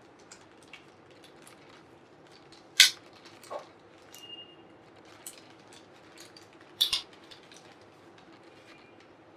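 An SSD's retail packaging being opened and handled, with small crinkles and clicks throughout. Two sharp snaps, about three seconds in and near seven seconds, are the loudest sounds.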